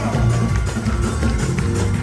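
Music playing, with a steady bass line.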